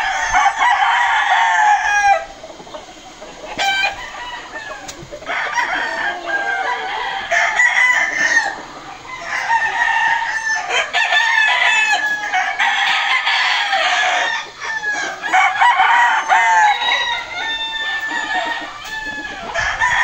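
Several gamecocks crowing, one crow overlapping the next at different pitches, with a brief lull about two seconds in.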